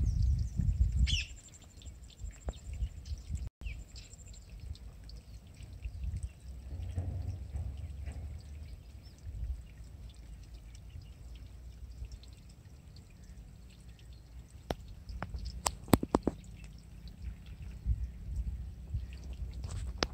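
Outdoor wind rumble on the microphone with scattered light clicks and rustles, most of them near the end.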